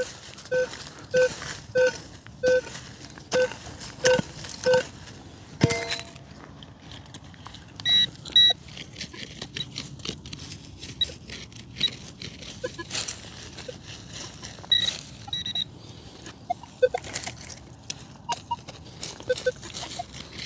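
Metal detector beeping at an even pace, about three beeps every two seconds, for the first five seconds, then only scattered short beeps at higher and lower pitches among light clicks and scrapes.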